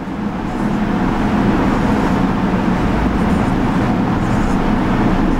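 Steady noise of a motor vehicle running close by, holding an even level.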